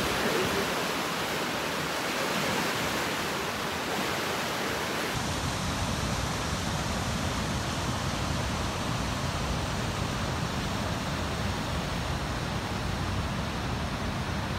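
River water running high in spring flood, rushing through white-water rapids in a steady roar. About five seconds in the sound shifts abruptly and takes on a deeper rumble.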